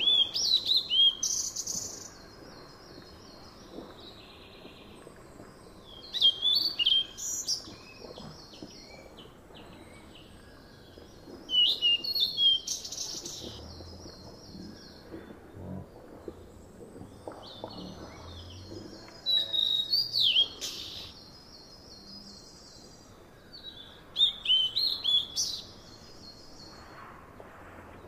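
A songbird singing a short phrase five times, about every five to six seconds. Each phrase is a few swooping high notes followed by a fast run of repeated notes, over a faint steady outdoor background.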